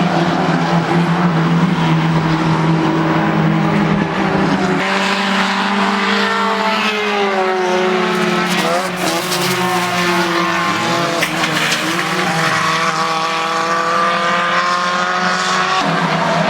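Race car engines running hard on a circuit, the engine note falling through the middle and climbing again near the end.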